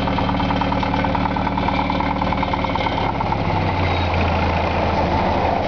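1943 Ford GPW jeep's four-cylinder flathead engine idling steadily. Its low tone shifts about three seconds in.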